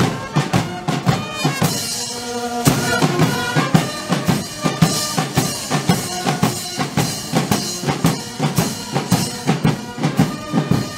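Music with a steady drum beat under sustained instrument notes.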